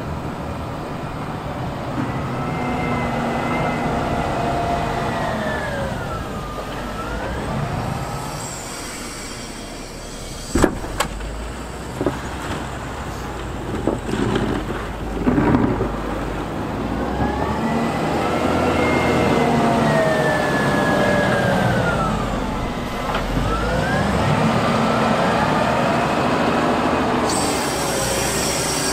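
Diesel wheel loader working with a snowplow: engine and drivetrain whine falling and then rising in pitch twice as the machine slows and speeds up. A handful of sharp metallic clanks come in the middle.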